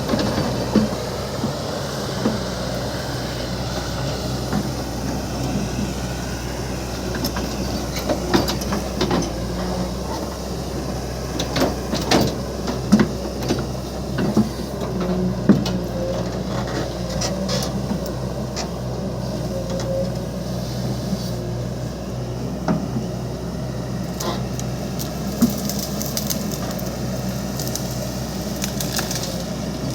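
Hydraulic excavator's diesel engine running steadily. Scattered sharp knocks and scrapes from digging come over it, most of them between about 7 and 16 seconds in.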